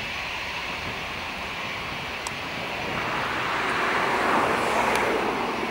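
Jet engines of an Airbus A319 heard from behind as it rolls away down the runway: a steady rushing noise that swells about three seconds in and eases near the end.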